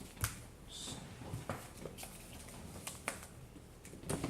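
Trading cards being handled and laid on a table: several short sharp snaps and taps, with a brief papery slide a little under a second in.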